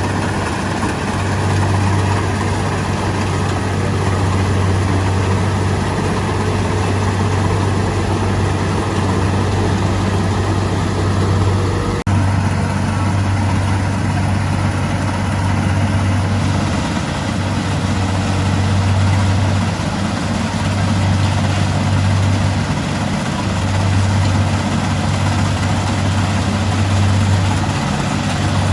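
Kubota DC60 rice combine harvester's diesel engine running steadily under load, a strong low hum with machinery noise over it. There is a short break about twelve seconds in.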